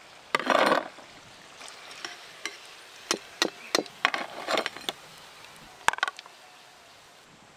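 Steel slotted spoon scraping and clinking against the wok and a plate as fried fish fingers are lifted out of the oil and tipped off. There is a short scrape about half a second in, then a run of sharp clinks and taps between about three and six seconds, over a faint frying sizzle.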